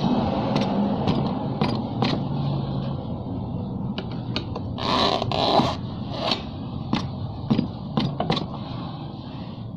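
Metal tyre lever scraping and prying a scooter tyre's bead over the rim, in a run of short scrapes and sharp clicks that thicken in the second half, over a steady low hum. This is the tyre being levered back onto the wheel by hand after an inner-tube repair.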